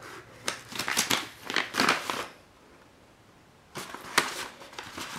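A paper envelope being torn open and handled by hand: crackly rustling and tearing of paper in quick bursts, a pause of about a second and a half in the middle, then more rustling near the end.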